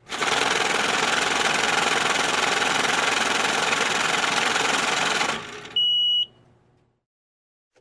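Banknote counting machine running, a fast, dense whir of notes riffling through that winds down about five and a half seconds in, followed by one short high beep as the count finishes.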